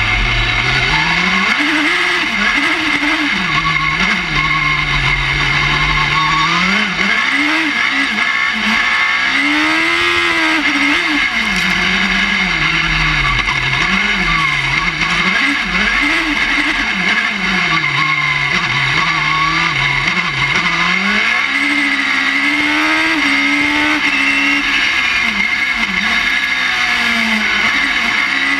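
Suzuki Hayabusa four-cylinder motorcycle engine of a rallycross crossbuggy at full race pace, heard from inside the cockpit. It revs up and down through the gears without a break, its pitch climbing and then dropping every second or two, over a steady high whine.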